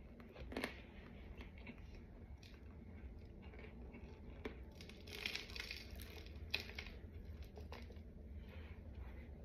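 Faint crunching and chewing of dry, crumbly white powdery chunks, with scattered small crackles that are busiest about five to six seconds in.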